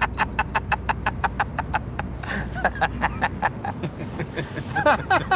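A man laughing hard and long, a rapid, even run of 'ha's at about five a second that breaks up about two seconds in into looser, uneven laughter.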